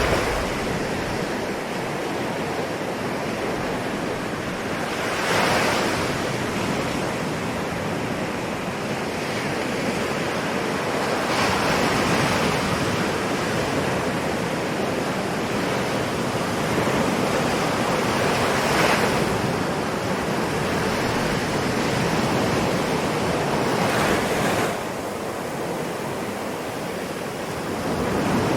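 Ocean surf: a continuous wash of waves, with a wave surging louder about every six seconds.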